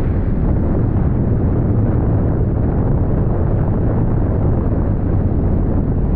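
Steady low rumble of wind and road noise from a moving vehicle, with wind buffeting the microphone.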